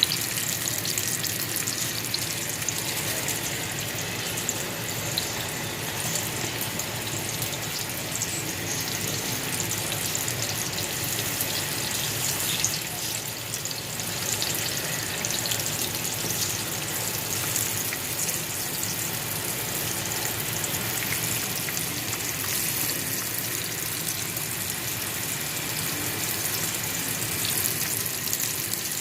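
Green tomato slices frying in hot oil: a steady sizzle with fine crackling.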